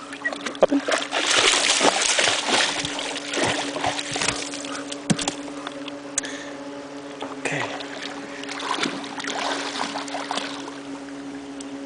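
Water splashing and dripping as a wet German shepherd climbs out of the river into a canoe, with knocks on the hull. The splashing is heaviest in the first half and thins to scattered drips and knocks, over a steady low hum.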